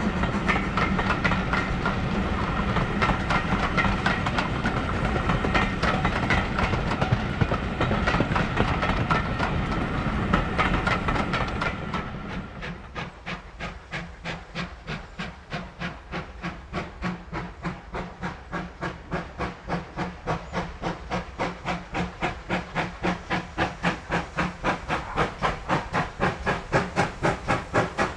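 Passing train coaches rolling by with a steady rumble and wheel clicks; about twelve seconds in this gives way to a steam locomotive's exhaust beats, about three a second, growing louder as it approaches.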